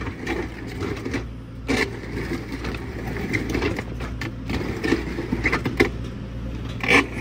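Excavator engine running steadily while its auger attachment drills into rocky ground, with irregular knocks and rattling as the bit hits rock.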